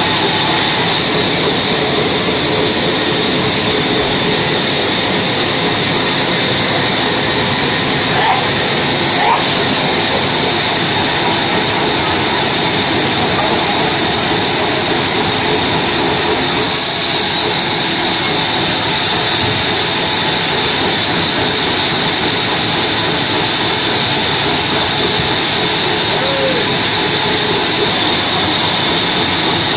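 Large log bandsaw running, a loud, steady mechanical noise with a strong high-pitched hiss that never lets up.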